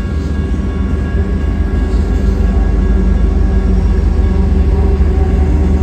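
Freight train's diesel-electric locomotives passing close by: a deep engine rumble with a steady high whine over it, growing a little louder as the units come past.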